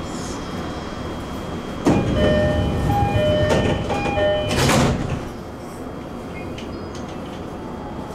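E231-series train's sliding doors closing: a two-tone door chime repeats over a louder rush of noise starting about two seconds in, and the doors thud shut about five seconds in.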